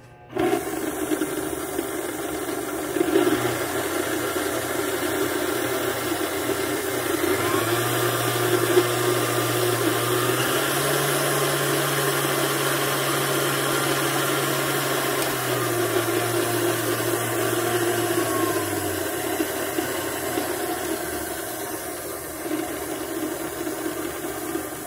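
Vintage Hobart KitchenAid K45SS stand mixer switched on and running unloaded, its flat beater spinning with no bowl. The motor hum steps up in speed in two stages toward the middle, then steps back down in stages toward the lowest setting.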